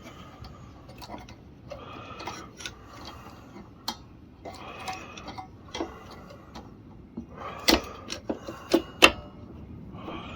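Scattered sharp clicks and light clacks from a mower's throttle-and-choke control lever and linkage being moved and set by hand. The loudest clicks come close together a little past the middle.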